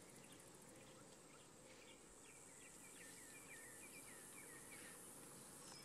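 Near silence: faint outdoor ambience with a run of soft, short chirps in the middle.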